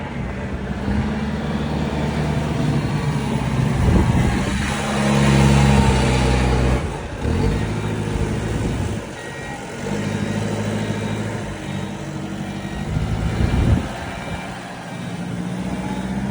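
A heavy vehicle's engine running, its low hum swelling and easing several times as the load changes, over a steady rush of wind and snow noise.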